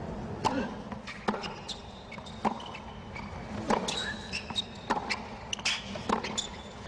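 Tennis rally on a hard court: racquets striking the ball and the ball bouncing, a sharp pop about once a second.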